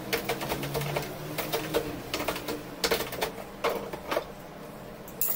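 Metal hand plane shaving a wooden knife blade in quick, short strokes. Each stroke is a brief scrape with a click, and they come irregularly, several a second at times.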